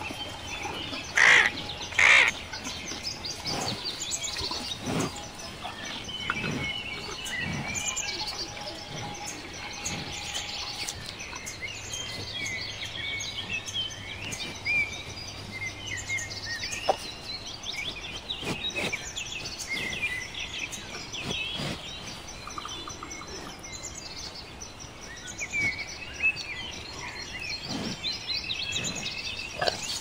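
Small birds chirping and trilling throughout, with two short, loud calls about one and two seconds in.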